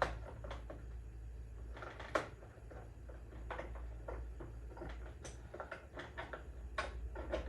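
Scattered light clicks and knocks of plastic and rubber as the stock turn signal assembly and its rubber grommet are worked out of a motorcycle's rear fender, with one sharper knock about two seconds in and a quick run of clicks near the end. A low steady hum sits underneath.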